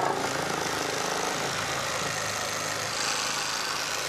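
Handheld electric knife running steadily, its small motor giving an even buzzing hum.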